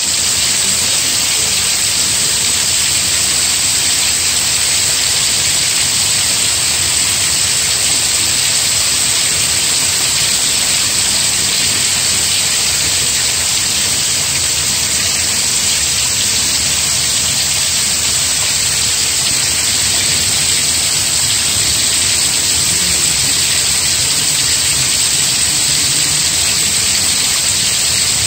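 Rain falling steadily: an even, continuous hiss of drops with no breaks or changes in strength.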